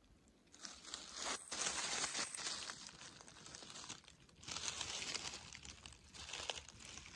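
Dry fallen leaves and twigs rustling and crunching under footsteps, in three spells of crinkly crackling, the first and longest starting about half a second in.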